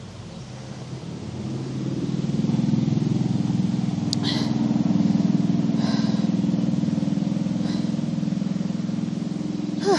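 Engine of a motor vehicle going by on a nearby road. It builds up over the first two or three seconds, holds steady, then slowly fades.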